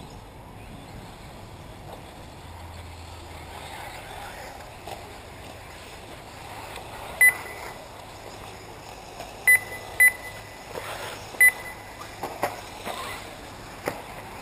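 Short, high electronic beeps, four loud ones in the second half and a few fainter ones near the end, typical of an RC race's lap-timing system as cars cross the line, over a steady outdoor background hiss.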